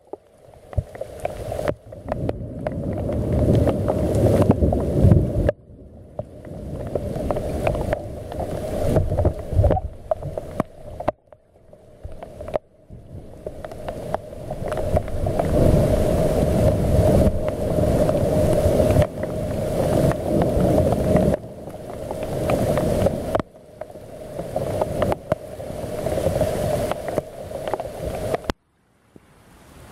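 Thunderstorm: long rolling rumbles of thunder that swell and fade, over a steady hiss of rain and wind on the microphone. The sound cuts out abruptly a few times.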